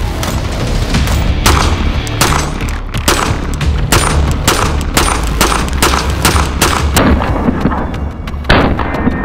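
A string of handgun shots, sharp cracks at an uneven pace, sometimes two or three within a second, over background music with a heavy bass line.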